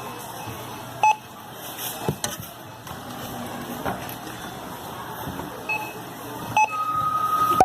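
Short electronic beeps, three spread out, then a longer steady beep near the end, over a background of clatter and general noise.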